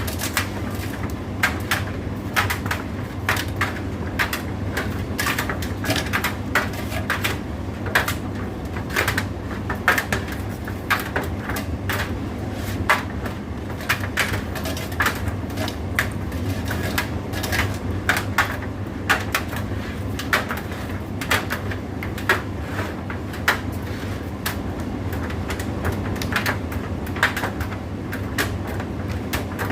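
Indesit IDC8T3 condenser tumble dryer running, its drum and motor giving a steady low hum, with frequent irregular clicks and knocks as the tumbling load hits the drum.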